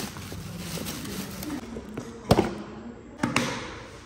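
Plastic carry bag rustling as it is opened, then two sharp knocks about a second apart from a plastic lunch box being handled on a wooden desk.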